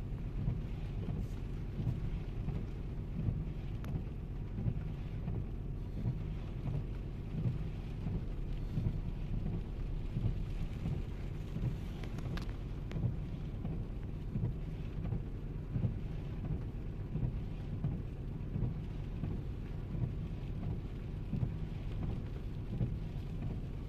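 Heavy rain drumming on a car's roof and windshield, heard from inside the cabin, over a low steady rumble.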